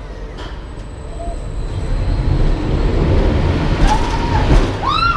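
Low train-like rumbling from the dark ride's carriage effects, swelling louder from about two seconds in. Two short high squealing tones rise and fall near the end.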